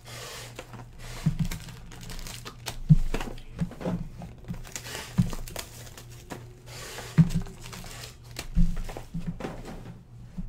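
Plastic shrink-wrap and foil packaging on trading card boxes crinkling and tearing as they are unwrapped by hand, with several sharp knocks of boxes set down on the table. A low steady hum runs underneath.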